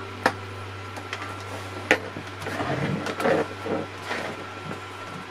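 Hard plastic parts being handled on a workbench: two sharp clicks, then plastic scraping and rattling as a plastic-cased inverter and its wires are picked up and turned over. A steady low hum runs underneath.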